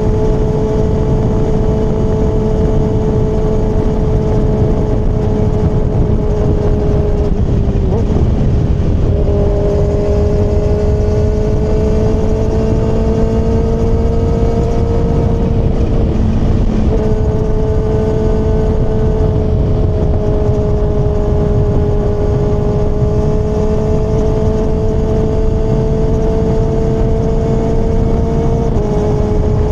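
Kawasaki ZX-6R's inline-four engine running under way, its note heavy with wind rush. There are three short dips in the note, about 8 and 17 seconds in and near the end, each followed by a slow climb in pitch.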